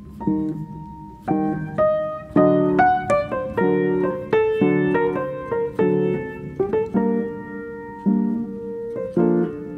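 Background music score: a piano playing a slow sequence of single notes and chords, each note struck and fading.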